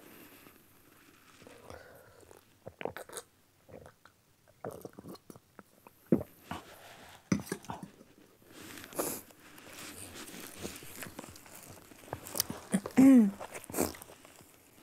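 A person chewing and biting crunchy food close to the microphone, with scattered crisp clicks and crunches. Near the end comes a short, louder hum that falls in pitch.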